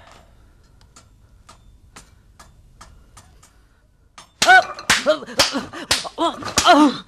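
A person's voice: a quick run of loud, short cries, each rising then falling in pitch, starting about four seconds in after faint scattered ticks.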